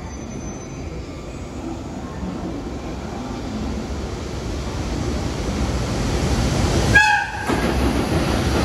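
Electric freight locomotive approaching and running past on a station track, its rumble growing steadily louder. About seven seconds in, it gives one short horn blast as it reaches the platform.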